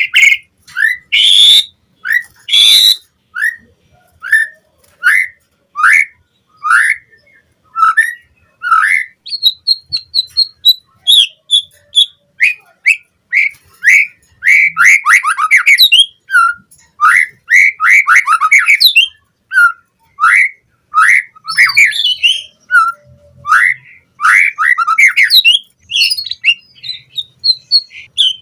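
White-rumped shama (murai batu) singing loudly: a series of short, clear, repeated whistled notes about one to two a second, broken up by denser chattering and rasping phrases and a brief high trill.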